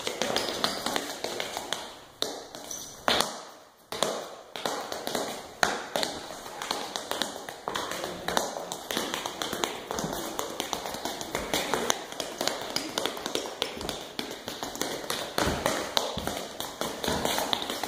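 Tap shoes striking a concrete floor in quick, irregular runs of sharp taps as a child tap dances, with a brief pause about three seconds in.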